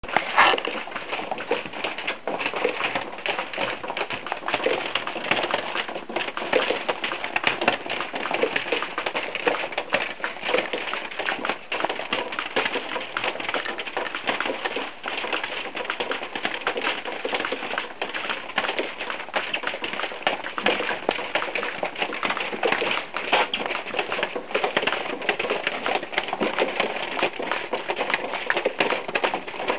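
Rainwater leaking through the ceiling, dripping and pattering steadily as a dense crackle of many small drops.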